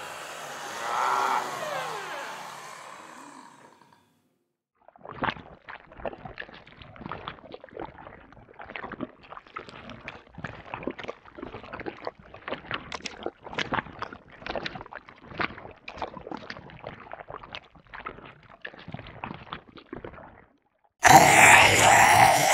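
Designed monster sound effects. A noisy creature sound fades out over the first few seconds, then a long run of rapid, irregular clicks and crackles follows, and a loud creature groan cuts in near the end.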